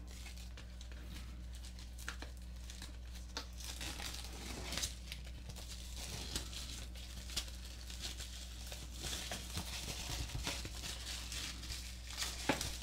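Clear plastic shrink wrap being peeled and pulled off a cardboard product box, crinkling and tearing in many scattered short crackles.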